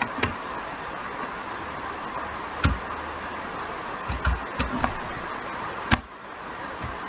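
Computer keyboard keys clicking a few at a time, with a small cluster about four to five seconds in and a sharp click near six seconds, over a steady hiss that drops away after that last click.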